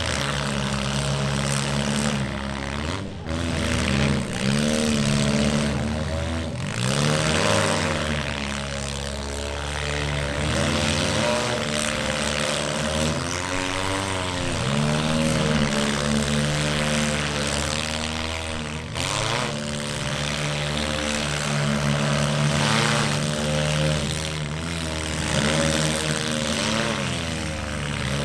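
Several demolition derby cars' engines running together, revved up and down again and again over a steady idle.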